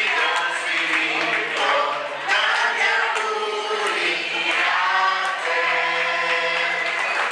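A group of voices singing together like a choir, with long held notes.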